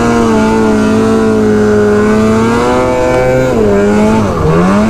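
Snowmobile engine running at high, steady revs while hill climbing, then easing off about three and a half seconds in, its pitch falling, and picking up again near the end.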